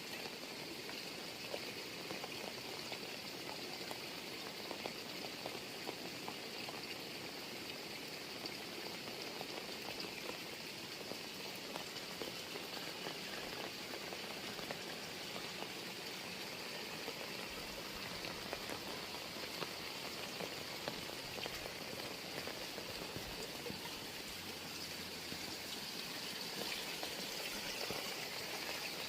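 Heavy rain falling steadily, a dense patter of drops hitting the ground and nearby surfaces.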